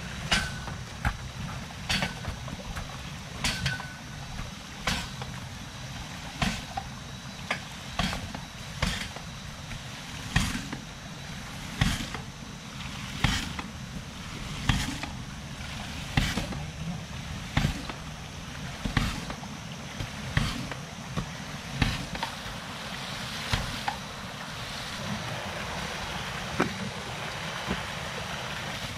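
Hydraulic ram pump working: its waste valve slams shut with a sharp clack about every one and a half seconds, the pump's normal self-driven cycle. Near the end the clacks fade and a steady rushing noise grows.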